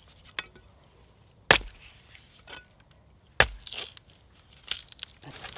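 Billhook chopping into the base of a thin tree stem: two sharp strikes about two seconds apart, with a few lighter knocks between.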